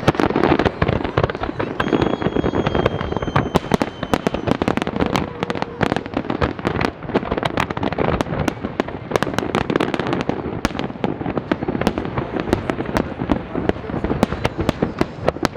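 A fireworks display firing a dense, continuous barrage of bangs and crackles, many shells bursting in quick succession with no pause. A thin, slightly falling whistle sounds for about two seconds, starting about two seconds in.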